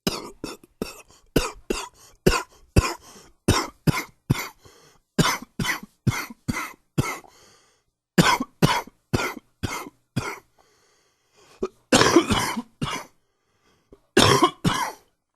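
A man coughing in fits of rapid, short coughs, about two a second, broken by brief pauses, with a longer, louder cough about twelve seconds in. The uploader calls it bronchitis coughing.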